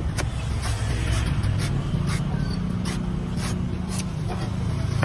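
Cleaver chopping the husk of a young green coconut: a series of short sharp cuts, about two a second, over a steady low engine hum.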